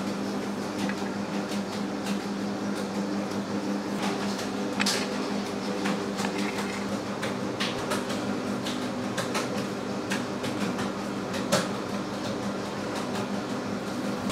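A small electric motor switches on and runs with a steady hum, with scattered clicks and light knocks over it; the sharpest knock comes near the end.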